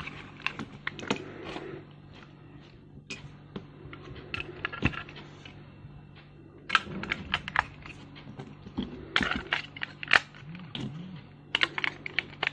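Batteries being handled and pushed into the plastic battery compartments of a tripod's legs: a run of small, irregular clicks and taps of metal on plastic, in short clusters.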